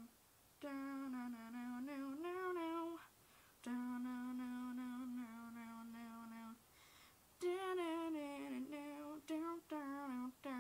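A woman humming a tune in three phrases with short pauses between them, holding long steady notes.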